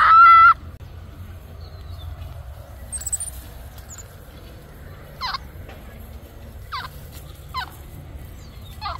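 Baby capuchin monkey giving a loud, high whistling call that ends about half a second in. Later come four faint, short chirps, each falling steeply in pitch.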